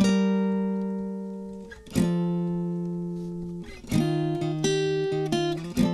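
Acoustic guitar playing a song's slow intro: a chord struck and left to ring out, then a new chord about every two seconds, with a few single notes picked over the third chord.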